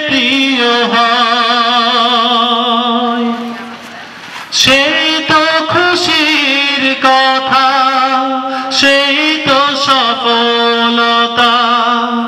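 A man singing a Bengali Islamic song solo, holding long wavering notes, with a short break for breath about four seconds in.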